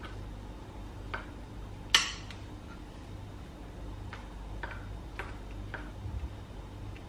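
A metal fork clinking against a ceramic bowl while mixing batter: a handful of light, irregular clinks, the sharpest about two seconds in.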